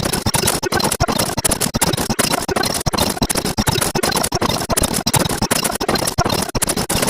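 Dense, irregular crackling: a rapid, uneven run of clicks over a steady hiss, an electronic sound effect.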